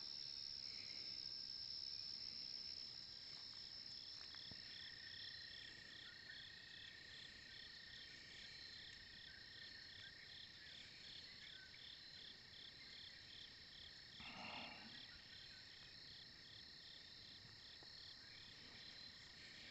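Faint chorus of insects: a steady high-pitched trill, with a second insect chirping in regular pulses, about three a second, through the middle stretch. A short muffled sound about three-quarters of the way through.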